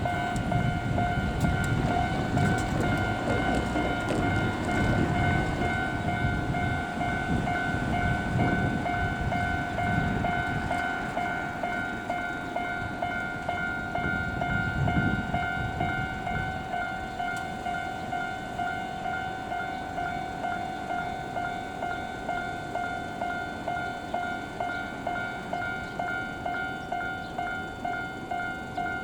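A Japanese level-crossing warning bell rings throughout in a fast, even, repeating ding. Under it a Keikyu Line train rumbles past, and its noise dies away about halfway through.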